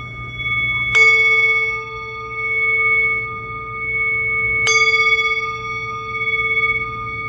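Metal singing bowl struck twice, about a second in and again near five seconds. Each strike sets off a long, clear ring of several tones over a deep hum, with a slow wavering pulse in the sound, and the ring still sounds from the strike before.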